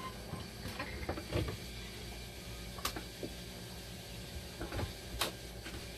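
Scattered clicks and light knocks from parts and tools being handled, the sharpest about three seconds in and about a second before the end, over a steady low hum.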